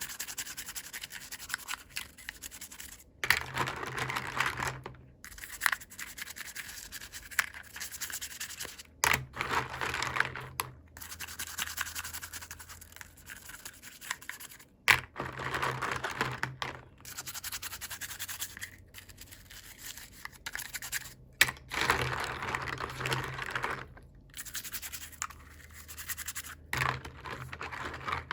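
Hands scratching and rubbing at toy packaging while unboxing. The noise comes in repeated bursts of a second or two, with short pauses and a few sharp clicks between them.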